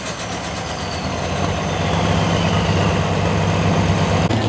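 Diesel Dodge Ram pulling truck idling steadily after its run, off the throttle. Near the end the sound cuts abruptly to another idling engine.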